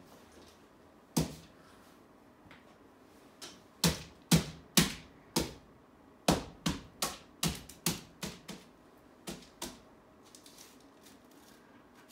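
Sharp taps of a hand-held painting tool dabbed against the wooden wall board: one tap about a second in, then a run of about two taps a second from about four seconds in, growing weaker and stopping near ten seconds.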